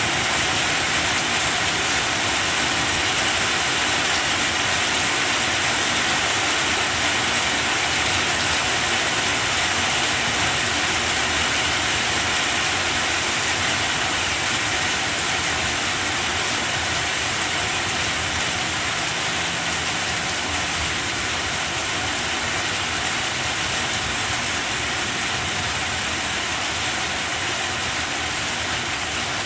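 Rain falling steadily on banana plants: a dense, even hiss with no breaks.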